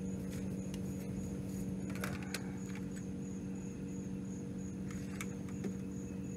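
A steady hum holding several fixed pitches, with a few short light clicks and knocks about two seconds in and again near the end. A faint, high, evenly pulsing chirp runs above it.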